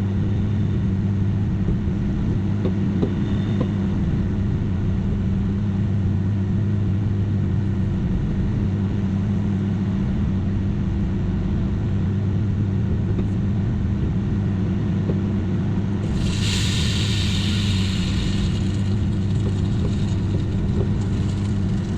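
Microwave oven running with its steady mains hum. About sixteen seconds in, a sudden loud hiss breaks out and dies away over a few seconds.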